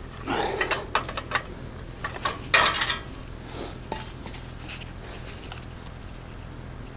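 Perforated sheet-metal grate clanking and clicking as it is handled on the ground, a quick run of metallic knocks and scrapes loudest about two and a half seconds in, then quiet.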